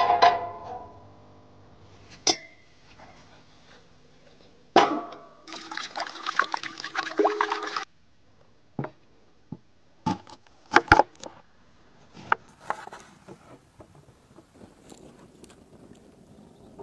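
Cooking gear and food being handled: a cast-iron pot ring set down on a steel brazier top with a ringing metal clank at the start, then a run of separate knocks and clatters.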